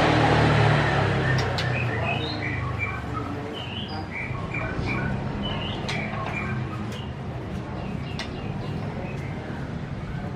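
Medan-type white-rumped shama singing in its cage: a run of short, varied whistled and chirped notes with sharp clicks among them, from a newly arrived bird already in song. A low rumble fades out over the first few seconds.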